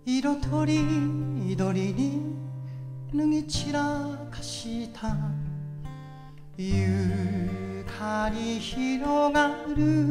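A man singing a Japanese ballad in a wavering, held voice, accompanied by his own acoustic guitar, with strummed chords and long ringing low notes.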